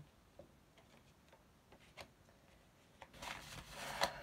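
Tarot cards being shuffled by hand: a few faint taps, then a rustling run of shuffling from about three seconds in, with a sharp snap of the cards about four seconds in.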